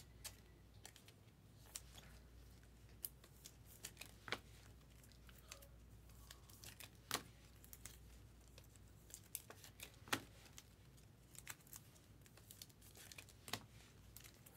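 Faint handling of trading cards and clear plastic card sleeves: scattered soft clicks, taps and crinkles, a few a second and irregular.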